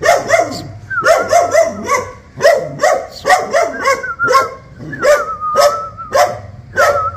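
White spitz-type dog barking at a stranger, sharp barks in quick runs of about three a second, again and again.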